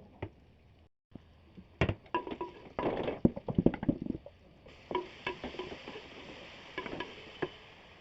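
Metal utensils clattering and knocking against a cooking pot, busiest about three to four seconds in. From just past halfway a steady sizzle of food frying sets in, with a few more stirring clinks over it.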